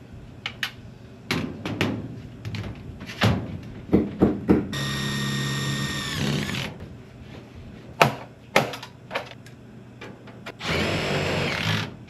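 Cordless drill driving screws into sheet-metal ductwork: a steady motor whir of about two seconds that drops in pitch as it stops, with a second run starting near the end. Sharp metallic clicks and knocks from handling tools against the sheet metal come in between.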